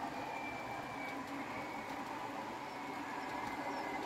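OO gauge model trains running on the layout: a steady rattle of wheels on track with a faint high motor whine that fades in the first second or so.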